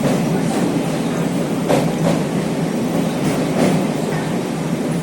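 A passenger train running at speed: a steady rumble of the carriage with its wheels clacking over rail joints in pairs every second and a half or so.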